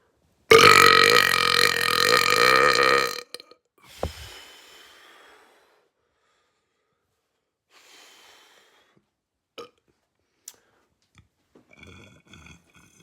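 A person's single long, loud burp, held for nearly three seconds and starting about half a second in.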